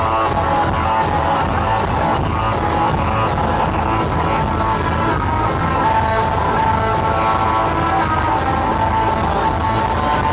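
Live rock band playing an instrumental passage: two distorted electric guitars with a held, ringing note over a steady drum beat of about two hits a second.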